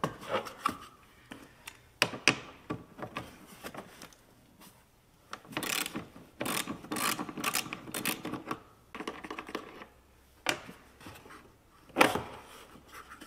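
A socket ratchet clicking in short runs, with metal tool clinks, as the nut holding the battery cable at the under-hood fuse box junction is loosened.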